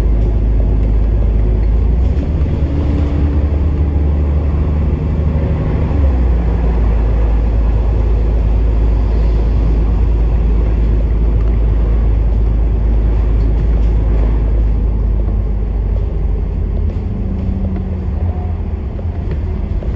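Bus engine and road noise heard from inside the moving bus: a steady low rumble, the engine note changing pitch now and then.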